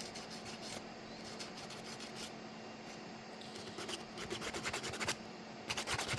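Sandpaper rubbed by hand over a 3D-printed plastic part, a soft scratchy scuffing with short strokes that grow louder and more frequent near the end.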